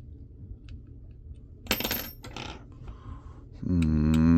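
A small metal hard-drive part drops onto a hard surface with a sharp clink and brief ringing, after a few light ticks of handling. Near the end a steady low hum with a clear pitch starts and is the loudest sound.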